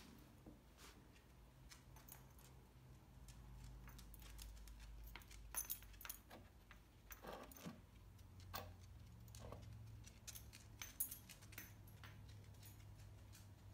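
Faint, scattered light clicks and jingles from a dog moving about: collar tags jingling and claws clicking on the wood floor, over a low steady hum.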